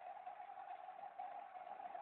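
450-size electric RC helicopter running with its main rotor turning: the 4400 kv brushless motor and drive gears give a steady whine.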